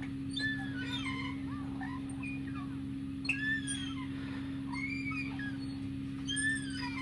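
Metal swing set squeaking with each pass of a swing: a short gliding squeal about every second and a half, over a steady low hum.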